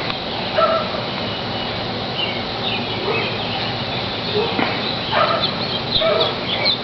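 Many birds calling at once: short overlapping calls over a steady din from a large flock.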